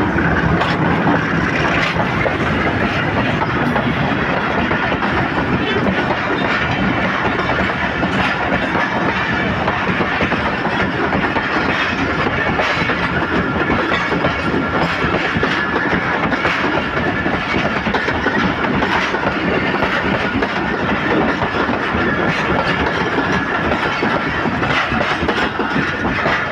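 Pakistan Railways passenger train coaches rolling past at close range, steel wheels clattering over the rail joints in a loud, continuous rush of clicks and rumble.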